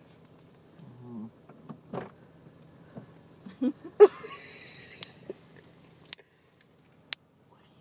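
Handling and rustling noise inside a car, with a short loud voice sound about four seconds in and a few sharp clicks after it. A low steady hum cuts off about six seconds in.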